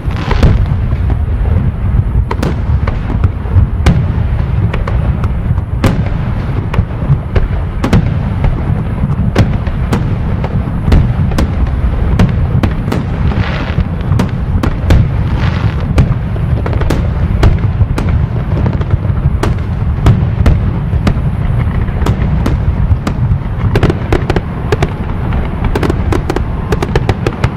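Loud, bass-heavy hard bass dance track with a dense, heavy low end. Many sharp, irregular crackling pops run through it.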